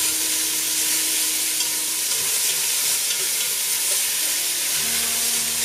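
Chopped onion, celery and bell pepper sizzling steadily in a hot, dark-brown roux of oil, vegan butter and flour while being stirred in the pan.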